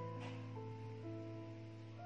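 Quiet instrumental background music: a slow melody of long held notes.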